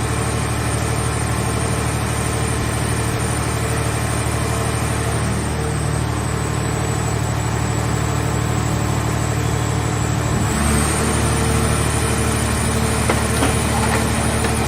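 Scrap car baler's power unit running with a steady hum. Its pitch and load shift about ten seconds in, and a few sharp cracks come near the end.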